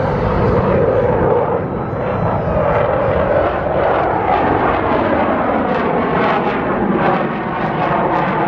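Airplane engine noise from a fast low pass, loud and steady, its pitch rising a little in the middle and then easing down.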